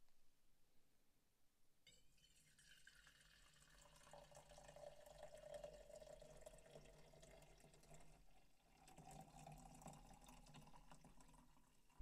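Hot coffee poured from a stainless steel carafe into a stainless insulated mug, a steady stream filling the mug; the pouring starts about two seconds in.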